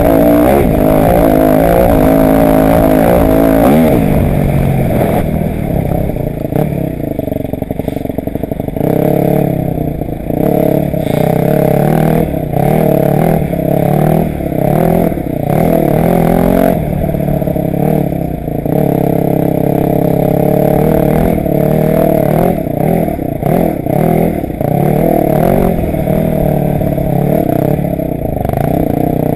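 Motocross bike's engine heard from on board, revving up and down as the rider opens and closes the throttle around the dirt track. The pitch climbs and falls again and again, with short dips each time the throttle is rolled off.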